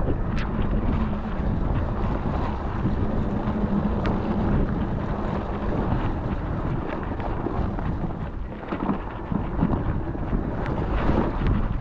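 Wind buffeting the microphone while riding a mountain bike, with scattered clicks and rattles from the bike; a low steady hum fades out about halfway through.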